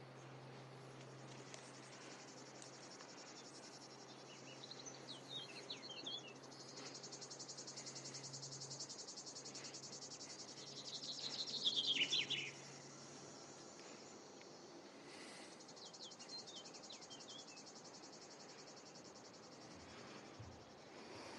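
Insects trilling in a faint, high, rapidly pulsing buzz that comes and goes. Two clusters of short falling chirps stand out, the louder one about halfway through, over a low steady hum that fades out before the middle.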